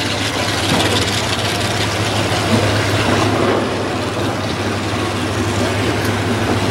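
Classic muscle-car engines idling steadily with a constant low rumble as the cars wait at the drag-strip starting line.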